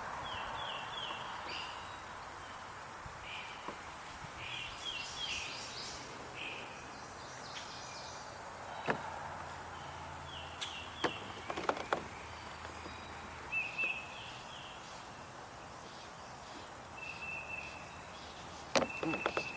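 Swamp ambience: a bird calling again and again in short quick series of chirps over a steady high insect drone that stops about two-thirds of the way through. Several sharp clicks and knocks come in the middle, and a cluster of louder ones comes near the end.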